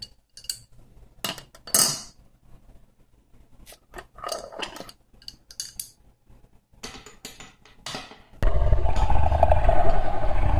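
Metal clinks and clanks of a plumber's tools knocking against the pipes under a kitchen sink, scattered and irregular. About eight seconds in, a loud, long rumbling noise with a fluttering edge starts suddenly and drowns them out.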